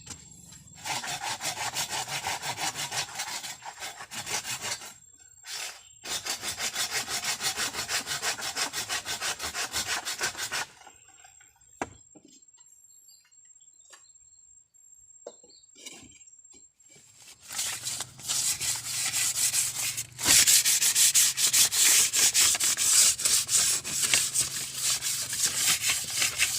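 Hand saw cutting through bamboo in quick rasping strokes, in three spells with a quiet pause in the middle; the last spell is the loudest.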